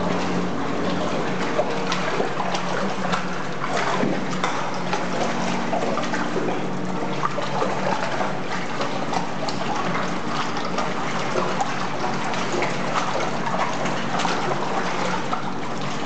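Water splashing and sloshing in a hydrotherapy tank as a dog moves through it, with many small irregular splashes. A faint steady low hum runs underneath.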